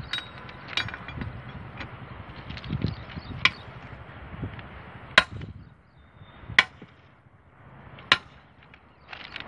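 A railway keyman's hammer striking the steel rail fittings: about six sharp, ringing metal knocks at irregular intervals, the last three about a second and a half apart.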